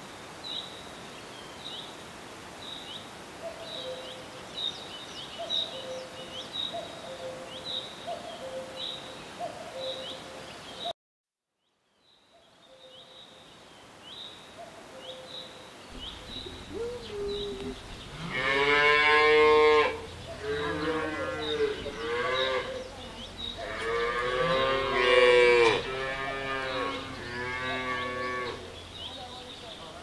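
Dairy cows mooing: several long, deep moos one after another in the second half, the loudest about two-thirds of the way through. Before them, a steady run of high chirps about twice a second, then a moment of silence.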